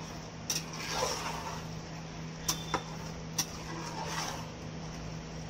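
A metal ladle stirring wet rice and soya chunks in a metal pot: soft scraping swishes with several sharp clinks of the ladle against the pot, over a steady low hum.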